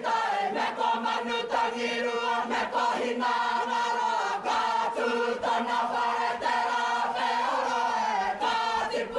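Massed voices of a kapa haka group, men and women together, chanting in Māori in unison, with held pitched lines broken by sharp rhythmic accents.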